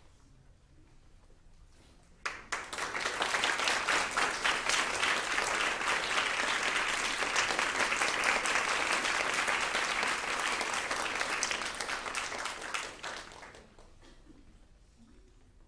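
Audience applauding. It starts suddenly about two seconds in, holds steady, and dies away a couple of seconds before the end.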